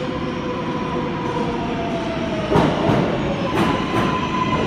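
NYC subway R142-series electric train pulling into the station: a steady rumble with a slowly falling electric whine, then wheels clacking over rail joints several times, loudest about two and a half seconds in, and a steady high tone near the end.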